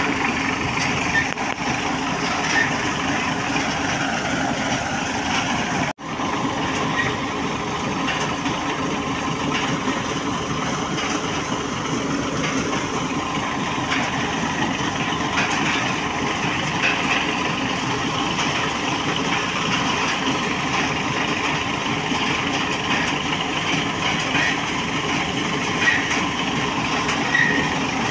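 Engine of a tractor-driven tubewell boring rig running steadily while drilling, with muddy drilling water gushing from the discharge pipe and splashing into the pit. The sound cuts out for a split second about six seconds in.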